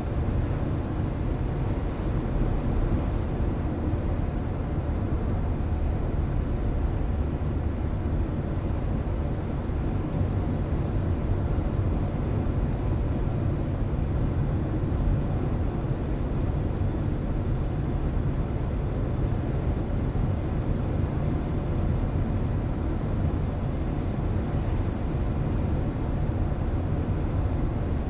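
Steady low road and engine noise of a car driving at an even speed, heard from inside the car.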